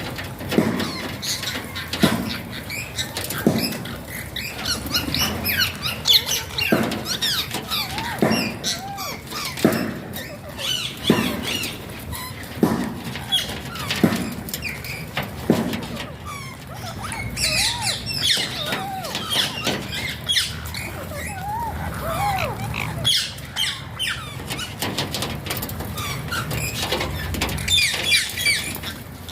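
Alexandrine parakeet calling with a run of short chirps and squawks. Through the first half there are regular sharp knocks, about one every second and a half.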